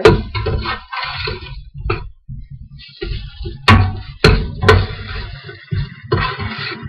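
Cooking in a pot on a gas stove: a spoon clattering, knocking and scraping against the pot, with patches of hissing sizzle. There are three sharp knocks in quick succession a little past halfway.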